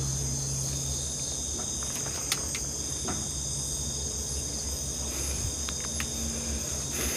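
Steady high-pitched chorus of crickets and other night insects, with a low hum underneath and a few faint clicks.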